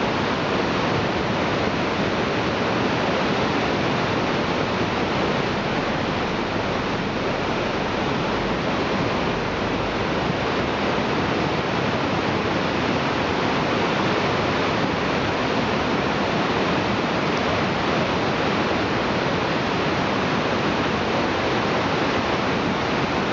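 Whitewater rapids rushing steadily over and around boulders.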